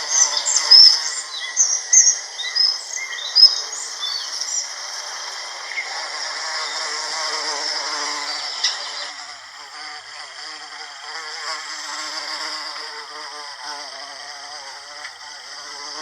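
American bumblebee buzzing as it works Cleveland sage flowers, the buzz wavering in pitch as it moves. Over the first few seconds, louder short high bird chirps come in.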